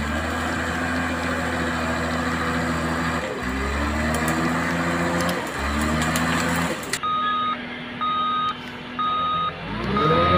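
RC bulldozer running with a steady engine-like drone that briefly shifts in pitch twice, then a reversing beeper sounding about once a second from around seven seconds in.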